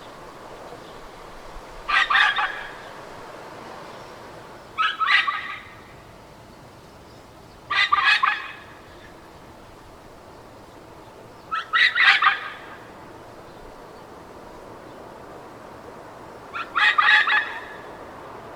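A dog barking in five short bursts of rapid barks, spaced a few seconds apart, over a steady background hiss.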